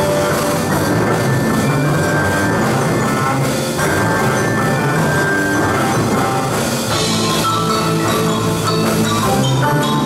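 Live percussion ensemble playing loud, busy music: marimbas and other mallet instruments struck in fast runs over drum kit and electric guitars.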